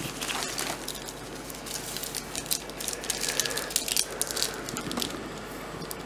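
Plastic and foil packaging crinkling and rustling as a small item is pulled out of a box and unwrapped by hand, an irregular run of small crackles and clicks.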